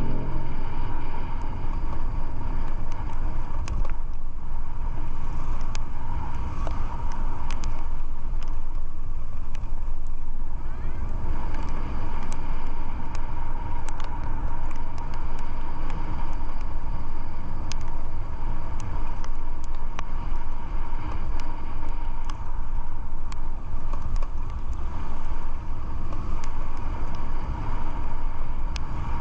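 Road vehicle travelling along a road: steady engine and road noise.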